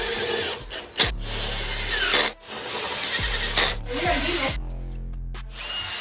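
DeWalt 20V brushless cordless drill driving T45 Torx screws into an electric scooter's aluminium battery housing. The drill runs in short bursts of about a second each, with sharp clicks between them.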